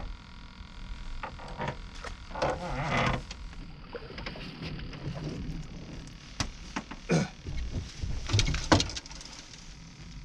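Scattered knocks, clunks and scrapes of fishing gear and a landing net against the boat while a fish is brought aboard, with a longer rustling burst about two and a half seconds in and the sharpest knocks near the end.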